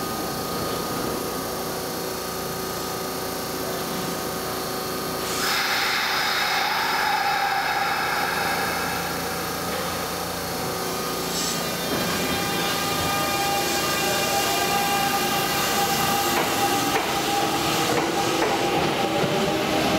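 Kintetsu 1026-series electric train standing at the platform, its onboard equipment humming, with a louder hiss setting in about five seconds in. From about halfway it starts pulling away, and the VVVF inverter whine rises slowly in pitch as it accelerates.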